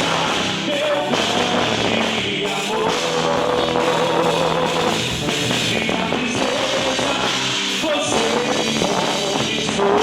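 Quadrilha junina dance music with singing, playing continuously.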